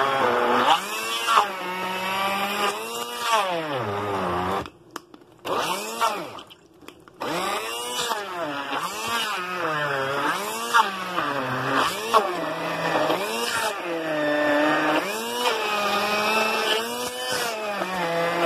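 Electric blender motor pureeing cooked chicken with spice paste; its whine repeatedly sags and climbs back about once a second as the blade bogs down in the chunks. It stops for about two seconds near the middle, with one short burst in the gap, then runs on.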